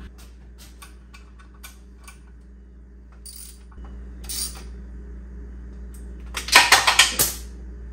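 Hand ratchet and metal tools clicking against the engine, with scattered small clicks and scrapes, then a quick run of loud ratchet clicks near the end as the speed sensor's hold-down bolt is driven in.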